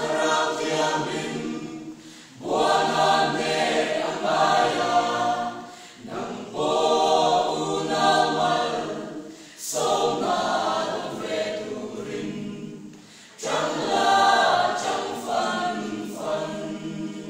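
Small mixed choir of men and women singing a gospel song a cappella in long phrases of about three to four seconds, with short breaks for breath between them; the last phrase fades near the end.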